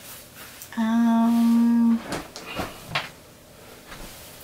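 A man humming one steady, low note for about a second, cut off abruptly, followed by a few light clicks as the flashlight is handled.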